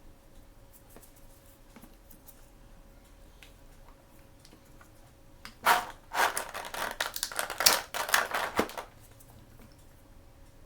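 Packaging being torn open and crinkled by hand, a loud dense crackling and rustling that lasts about three seconds, starting a little past halfway. Before it come faint scattered taps.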